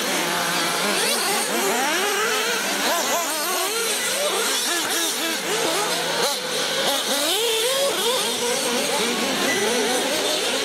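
Several radio-controlled model buggies racing together. Their motors whine up and down in pitch as they speed up and slow down, and the whines overlap throughout.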